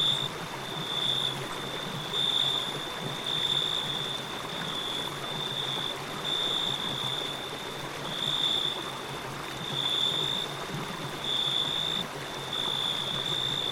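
Water flowing in a stream, an even rushing sound, with a high, clear chirp repeating about once a second over it.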